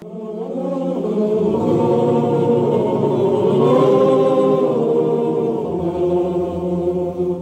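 A men's choir singing together in harmony on long held notes, swelling in over the first second.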